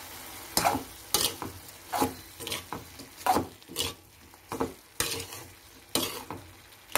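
Steel spoon scraping and knocking against a metal kadai while stirring cut green beans and onions, in uneven strokes about two a second. A faint sizzle runs underneath as the boiled beans fry.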